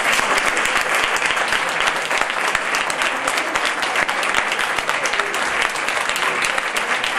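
Audience applauding: dense, steady clapping from a hall full of people.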